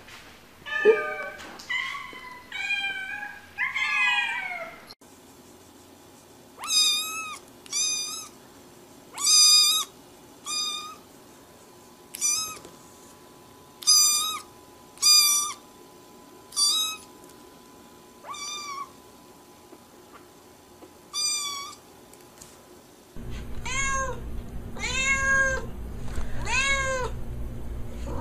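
Domestic cats meowing. First several overlapping meows of different pitches. Then a black kitten gives about ten high-pitched mews with pauses between them, and near the end a white-and-calico cat meows about six times in quick succession, lower in pitch.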